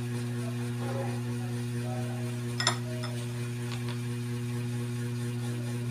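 A steady low electrical-sounding hum, with a couple of faint light clinks about two and a half and three and a half seconds in, like a utensil touching the pan.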